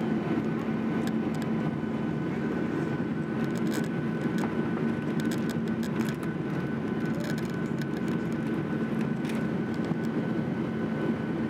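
Jet airliner's engines and airflow heard from inside the passenger cabin during the climb after takeoff: a steady, even drone with a constant low hum and a faint high whine.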